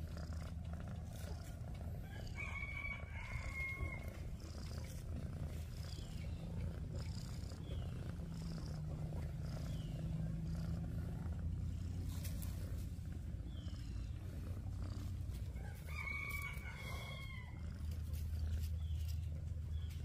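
Tortoiseshell cat purring steadily close to the microphone as it is scratched under the chin. A rooster crows twice in the background, about two seconds in and again near the end, with faint bird chirps between.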